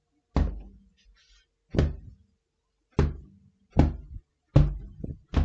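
A cushion held firmly and struck hard about six times at uneven intervals, each blow a deep, dull thud with a short decay, with a lighter hit near the end. These are foley punch-impact sounds.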